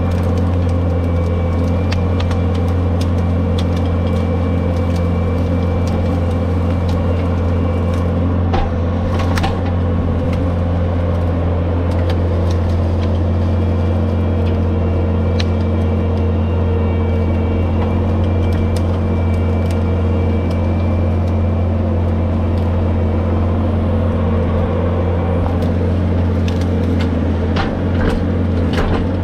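The loader driving a 66-inch Bobcat Brushcat rotary cutter runs steadily at working speed, with a strong low drone and steady whine. A few sharp cracks cut through it around nine seconds in and again near the end.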